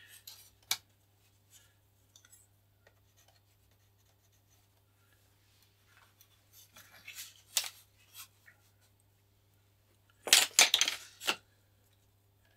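Pencil scratching in short strokes along a steel ruler on a model glider wing's surface. There is a click about a second in, then faint strokes, a louder run of strokes around seven seconds in, and the loudest, quick scraping near the end.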